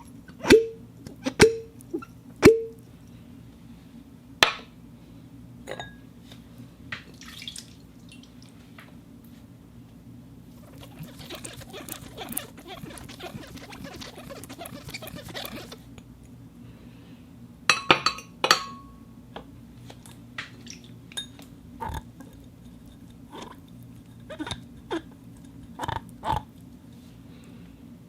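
Glass being tapped and clinked: a few sharp taps with a short ring in the first seconds, a stretch of rapid small clicks near the middle, then a cluster of louder taps and scattered lighter clinks toward the end.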